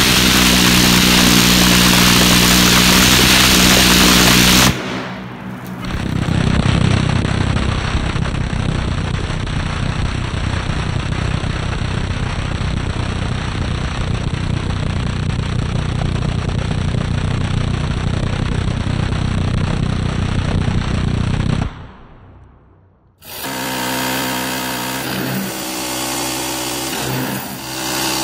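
M134 minigun firing long continuous bursts, a dense, steady rattle that cuts off abruptly about five seconds in and resumes a second later for about fifteen seconds. Near the end, after a brief sharp drop, a different, quieter mechanical sound follows.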